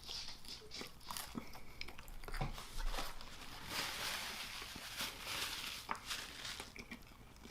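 Close-miked chewing and biting of pizza: soft mouth clicks and crunchy bites at irregular moments, with a longer crunching rustle about four seconds in.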